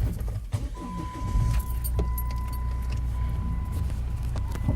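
Jeep engine running with a steady low rumble, a few light clicks and rattles, and a thin steady high tone that comes in about a second in.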